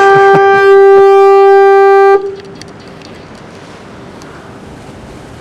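Fog horn blasting at close range: one long, loud, steady honk that cuts off suddenly about two seconds in, leaving wind and surf noise.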